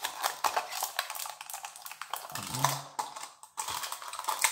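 Hard plastic surprise-egg capsule being handled and pried open by hand: a continuous run of small plastic clicks and rattles.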